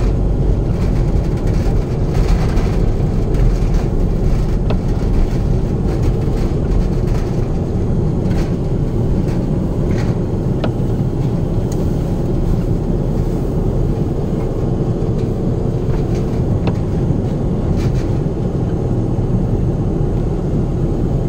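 Inside a moving car's cabin: steady low engine and tyre rumble as the car drives over a snow-covered street, with a few faint clicks and knocks.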